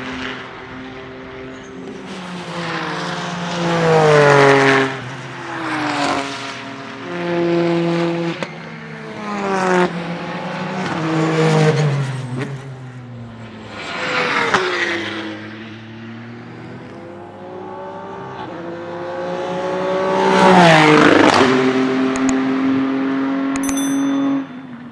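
Ligier JS P4's naturally aspirated 3.7-litre Ford Cyclone V6 race engine, driven hard: it revs up through the gears, shifts and drops in pitch as the car passes on track several times. The loudest pass comes near the end, with a sharp fall in pitch as it goes by.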